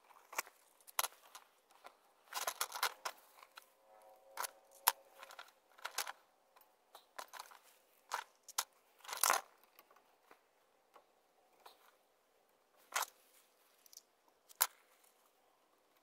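Strips of adhesive tape being peeled from their backing and wrapped around copper pipe: irregular crinkling, short rips and small clicks, with a brief squeak about four seconds in and the loudest rip about nine seconds in.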